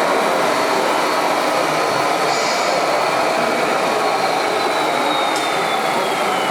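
Radio-controlled model trucks running, a steady mechanical noise of small motors and gearing, with a thin motor whine that slides down in pitch over the last two seconds as one slows.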